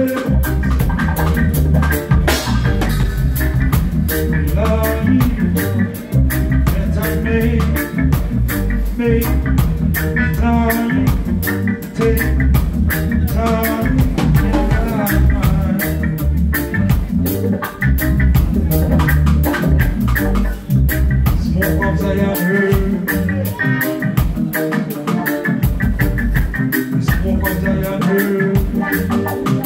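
Reggae band playing a bass-heavy groove with drums. The bass drops out for short moments in the last third.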